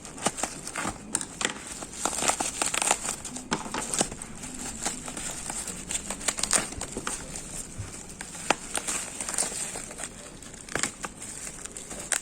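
Sealed product packaging being unwrapped by hand: plastic and box material crinkling and rustling, with irregular sharp crackles and taps.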